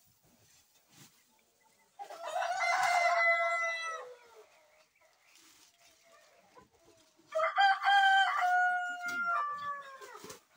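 A rooster crowing twice: a crow of about two seconds, then a longer one of about three seconds, each dropping in pitch at the end.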